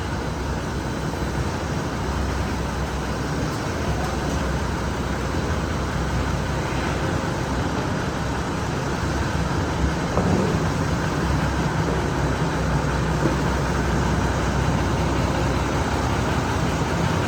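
A farm machine's engine running steadily as the old feed is cleared from the cattle feed alley, getting slightly louder about ten seconds in.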